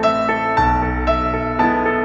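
Instrumental background music, with a note struck about twice a second over a low bass note.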